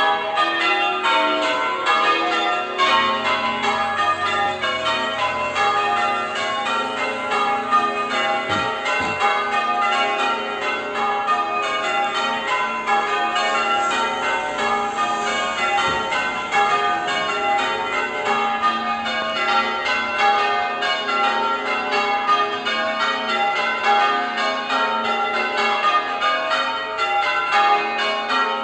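Church tower bells being rung in changes, one bell after another in a continuous, evenly spaced run of strikes at several pitches.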